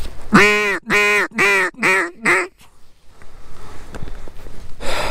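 Duck call blown by the hunter: five loud quacks in a falling series, each shorter than the last, calling to ducks that have just circled the decoys to bring them back.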